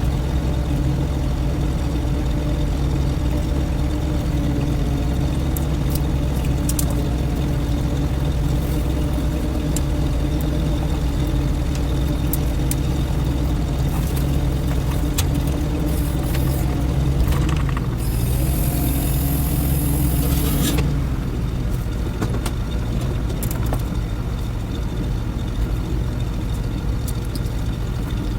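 Vehicle engine running steadily with a low rumble. About 18 seconds in comes a hiss of air lasting about three seconds, and after it the engine runs a little quieter.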